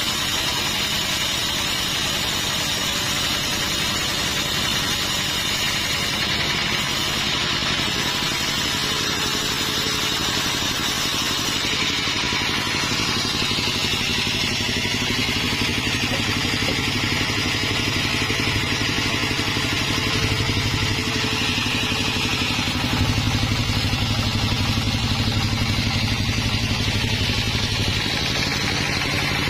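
Sawmill running: a steady engine hum with a higher whine from the saw over it, growing a little louder near the end.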